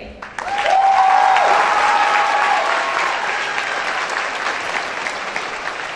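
Large crowd of students and families applauding and cheering for a senior whose name has just been called. The applause swells about half a second in with a few drawn-out shouts over it in the first couple of seconds, then slowly fades.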